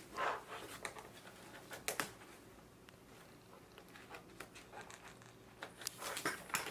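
Plastic tricycle parts being handled and fitted together: scattered light clicks and knocks, with a sharper one about two seconds in and a cluster near the end.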